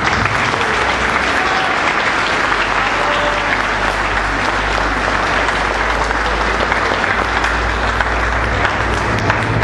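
Audience applause that starts at once and goes on steadily, a dense crackle of many hands clapping.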